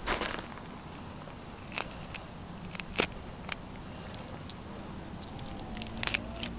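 Wet crunching and tearing as fingers rip the gills out of a freshly caught trout: a handful of short, sharp cracks, the loudest about three seconds in.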